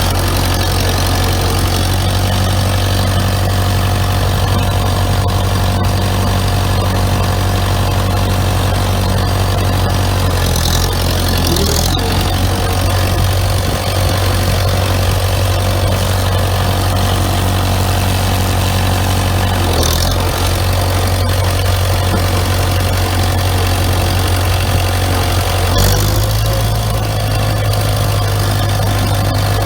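Farmall Super MD tractor's four-cylinder diesel engine running steadily at idle, with small changes in its note a few times.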